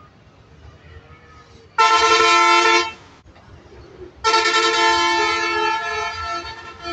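A vehicle horn sounding two blasts of several steady tones at once: a flat one-second blast, then about two seconds later a longer one that starts sharply and slowly fades.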